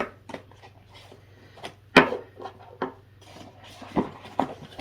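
Cardboard advent-calendar packaging being handled and rubbed, with scattered light taps and one sharp knock about two seconds in.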